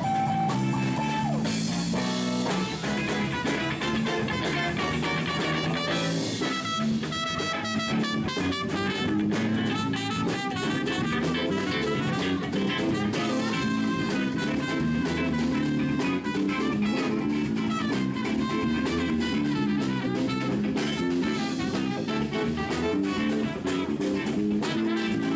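Live rock band playing: electric guitar over bass guitar and a drum kit.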